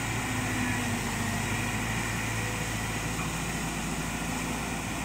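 Hydraulic excavator's diesel engine idling steadily, a constant low hum.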